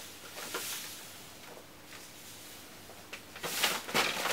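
Epsom salt hissing faintly as it pours from a plastic bag into a bowl, then the plastic bag rustling loudly for the last second as it is handled.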